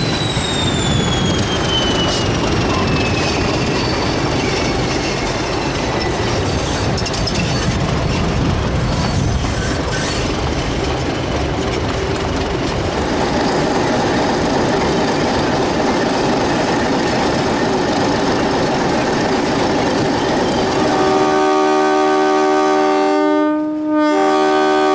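English Electric diesel-electric locomotive working hard as it passes with a carriage train, a steady heavy engine rumble with a high whine that falls slowly in pitch as it goes by. Near the end the rumble gives way to a steady chord of several held notes, broken once briefly.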